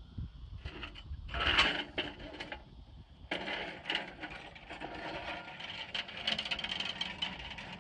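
Metal wheeled boarding steps clattering as they are grabbed and then rolled away over tarmac, a dense rattling of the frame and casters, loudest in a clatter about a second and a half in.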